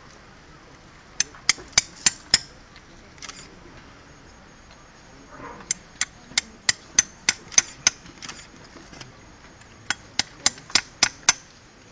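Hammer tapping a thin metal blade down into a wooden tree-stump block. Three runs of quick, evenly spaced sharp strikes, about three a second: about five, then about eight, then about six.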